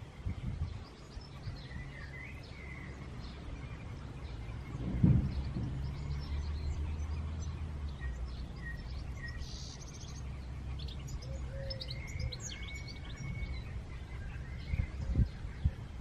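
Small garden birds chirping and calling at intervals over a steady low rumble, with a single thump about five seconds in.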